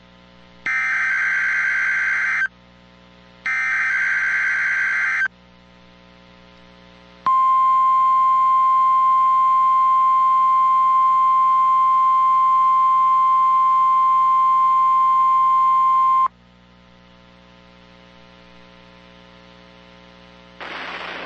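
NOAA Weather Radio Required Weekly Test signal. Two short bursts of SAME digital header data, each under two seconds and a second apart, are followed about two seconds later by the 1050 Hz warning alarm tone. The alarm is one loud steady tone held for about nine seconds, then cut off suddenly, leaving faint receiver hum.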